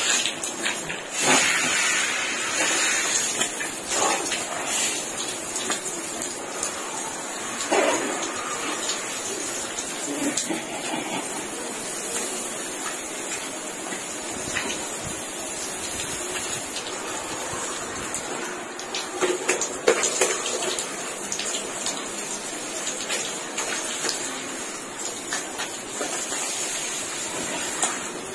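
Water spraying down from a DIY overhead shower and splashing on a person's body and the concrete floor: a steady hiss with a few louder splashes, the loudest about twenty seconds in.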